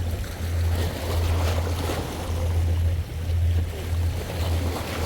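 Wind buffeting the microphone as a steady low rumble, with sea waves washing on the shore in surges.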